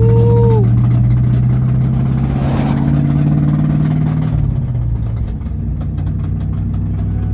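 Ford Mustang SN95's 4.6-litre two-valve V8 running under way, heard from inside the cabin; an engine with a known rod knock. The engine pitch climbs about two and a half seconds in, then falls back about four and a half seconds in.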